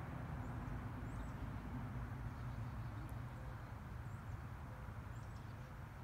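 Wind rumbling on the microphone, a steady low blustery noise, with a few faint high bird chirps scattered through it.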